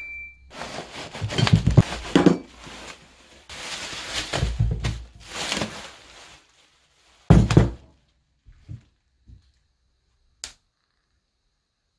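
Rustling and thunks of a parcel being handled and an exhaust silencer being unwrapped from bubble wrap, then one loud thump about seven seconds in, a few soft knocks and a sharp click.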